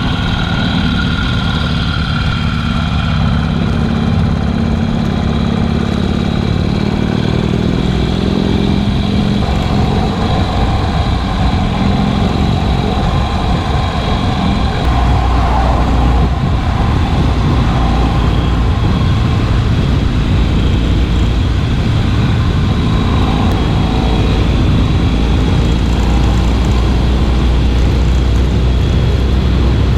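Harley-Davidson Sportster's V-twin engine running on the move, with a steady rush of road noise. A heavier low rumble comes in about halfway through.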